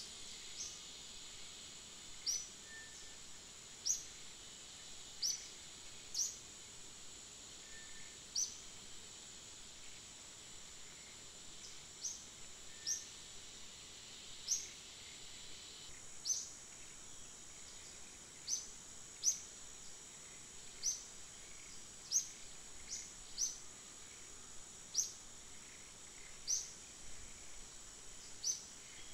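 Outdoor nature ambience: a steady high-pitched drone, with short, high chirps that fall in pitch, one every second or two. The chirps are the loudest sounds.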